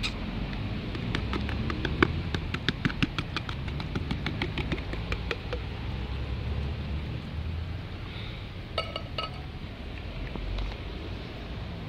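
A quick run of sharp clinks and taps from a metal can of wet cat food being knocked and shaken to empty it onto the ground, starting about a second in and lasting about four seconds, over a steady low rumble.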